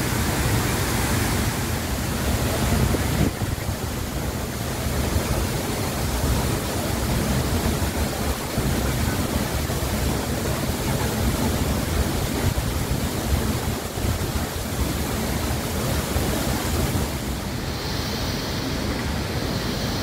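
Steady rush of a 70-metre waterfall falling into its plunge pool, an even wash of water noise that shifts slightly in tone near the end.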